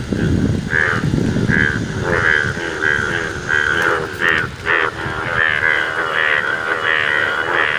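A chorus of Indian bullfrogs, males in bright yellow breeding colour, giving their monsoon breeding calls: short, loud croaks repeated two or three times a second and overlapping one another. A low rumble sits under the calls for the first two seconds.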